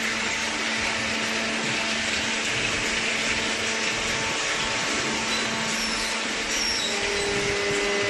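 Steady whirring hiss of running industrial machinery with a constant low hum; a second, higher hum joins near the end.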